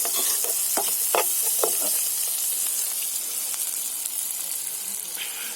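Carp roe frying in a pan with smoked lard, sizzling steadily. A few short clicks from stirring come in the first couple of seconds, and the sizzle eases slightly towards the end.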